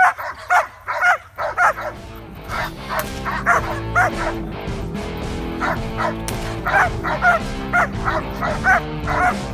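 Young German Shepherd barking in quick succession, roughly two barks a second: agitation barking at a decoy during protection bitework. Background music comes in under the barking about a second and a half in.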